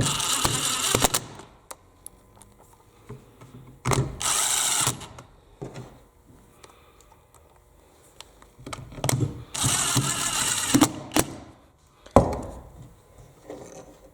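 Drill/driver running screws back into a circular saw's plastic housing in three short bursts of about a second each, with clicks and knocks of handling between them.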